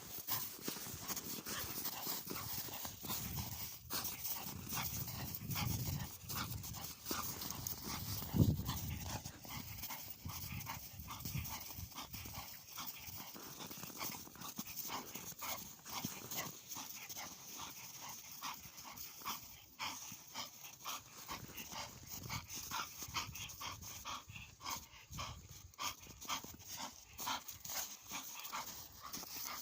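A bull terrier breathing hard and moving nonstop, a quick, even run of short sounds repeating for the whole stretch.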